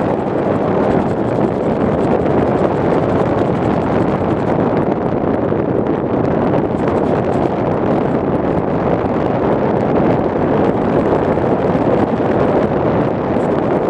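Steady, loud rush of wind buffeting the microphone: airflow over the HD camera carried on a flying RC plane.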